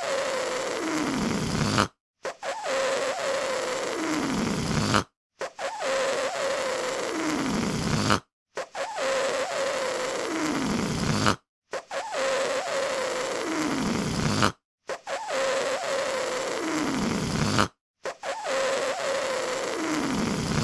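A rubber balloon deflating, air hissing out through its neck with a slight squeak, repeated about six times with short silent breaks between. In each one the squeak holds a steady pitch and then a lower tone slides down in pitch towards the end.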